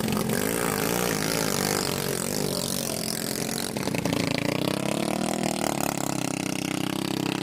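Small 13-horsepower long-tail boat engines running on the water, their pitch wavering up and down as the throttle changes, with a rise in engine pitch around the middle.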